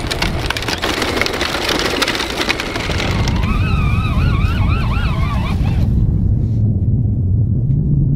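Wind rumbling and buffeting on the microphone, with crackling noise over the first few seconds. For a couple of seconds in the middle, a wavering high tone rises and falls over it.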